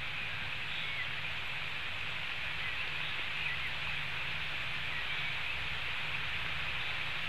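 Heavy rain falling on the white-tailed eagles' nest and the surrounding forest, a steady hiss picked up by the nest webcam's microphone, with a low hum underneath. A few faint short chirps show through the hiss.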